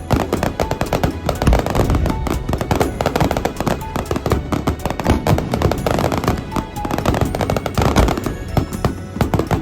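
Rapid barrage of fireworks, many shells bursting and crackling in quick succession with no pause.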